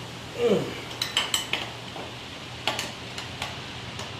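Metal hand tools clinking and knocking together as they are handled and set down, a handful of sharp clinks spread over a few seconds. A short downward-sliding sound comes first, about half a second in, and is the loudest part.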